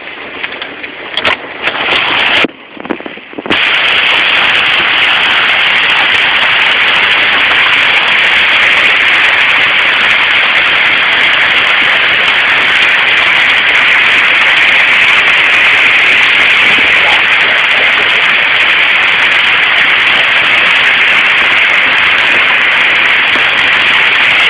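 Hailstorm: hail and heavy rain coming down hard, heard as separate sharp hits for the first few seconds, then a steady, loud, dense hiss.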